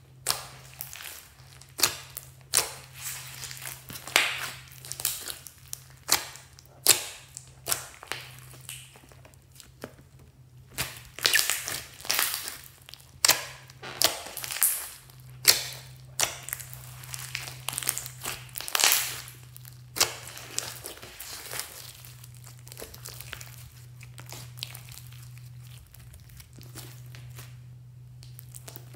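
Purple glitter slime mixed with foam beads being squeezed and kneaded by hand: wet squishing with irregular sharp pops and crackles from trapped air. The pops come thick and fast for about the first twenty seconds, then thin out and grow quieter near the end.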